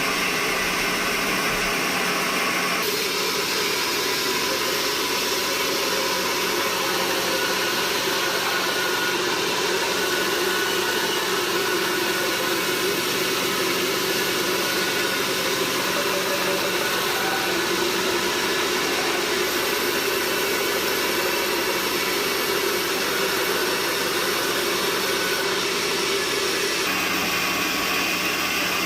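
Sawmill machinery running steadily, a dense continuous mechanical noise whose tone shifts about three seconds in and again near the end.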